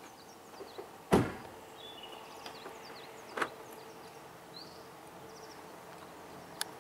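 A car door is slammed shut about a second in: one loud, solid thump. A lighter knock follows about two seconds later.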